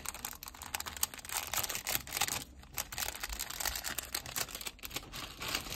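Stickers and plastic sticker bags being handled and sorted by hand: crackly crinkling and rustling with many small clicks.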